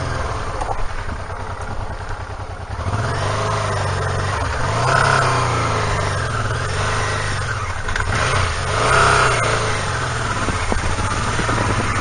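Honda Deauville's V-twin engine running, its note rising and falling with the throttle.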